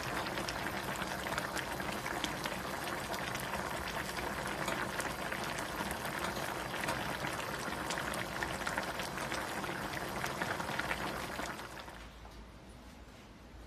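Pan of pickled-vegetable fish hotpot broth at a full boil, bubbling and popping steadily. Near the end the bubbling drops away sharply to a much quieter background.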